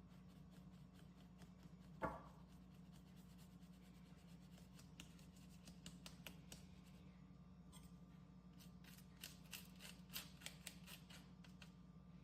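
Faint kitchen handling sounds over a low steady hum: a single knock about two seconds in, then a run of quick light clicks and taps near the end.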